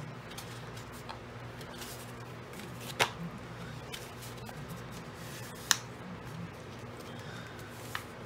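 Cardstock envelope being folded and its flaps pressed flat by hand on a cutting mat: soft paper rustling with a few sharp clicks, the loudest about three seconds in and again near six seconds, over a faint steady hum.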